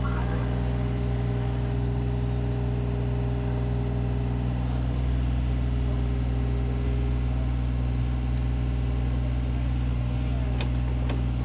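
Diesel engine of a trench-digging construction machine running at a steady speed, a constant low drone. A few faint clicks near the end.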